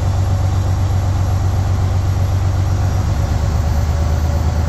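Freightliner Century truck's diesel engine idling steadily with a deep even hum while its air compressor builds air pressure, running on a newly fitted air governor.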